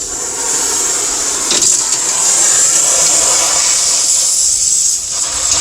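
A steady, loud hiss of rushing gas, from shop equipment being used to free a stuck part from a G56 transmission main shaft.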